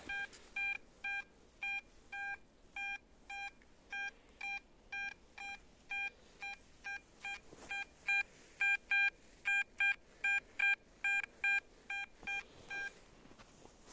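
XP Deus metal detector beeping, one steady mid-pitched tone repeated about two to three times a second, somewhat unevenly, as the coil passes back and forth over a metal target. The beeps stop about a second before the end.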